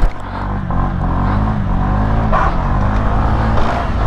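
Honda SH 125 scooter's single-cylinder four-stroke engine revving hard, its pitch rising and falling, as the rider pulls a wheelie.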